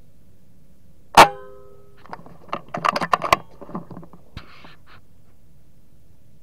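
A single sharp air rifle shot about a second in, with a short metallic ring after it. About a second later comes a run of rattling and clattering with sharp clicks, then one more click and a brief hiss.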